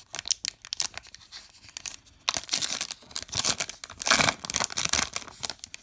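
A sealed trading-card pack wrapper being torn open and crinkled by hand: a few scattered crackles, then dense tearing and crinkling from about two seconds in, loudest a little past the middle.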